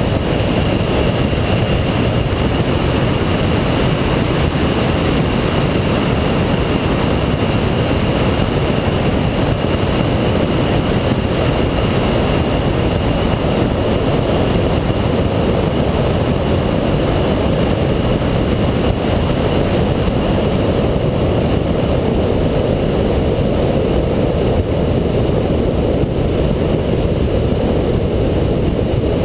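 2007 Shelby GT500 driving at a steady pace on track: a constant, loud mix of engine, tyre and wind noise with no shifts, revving or other changes.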